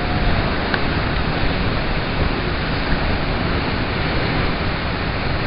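Waterfall pouring into its plunge pool at close range: a loud, steady rush of falling water.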